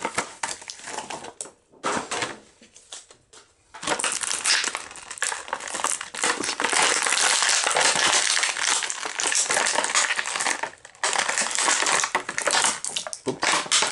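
Action-figure packaging crackling and crinkling as the figure is worked out of its box and plastic tray: scattered rustles in the first few seconds, then dense crackling for most of the rest, with a short break about eleven seconds in.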